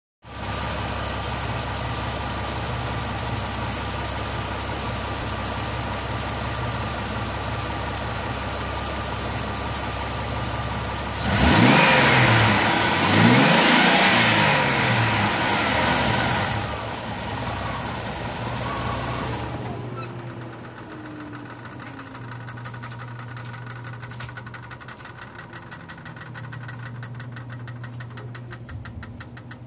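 2000 Jeep Grand Cherokee engine idling, revved twice about eleven seconds in, then idling again and switched off near twenty seconds. After shut-off a rapid, light ticking carries on, which the owner has heard after every shut-off since rebuilding the cylinder head and thinks comes from the exhaust manifold.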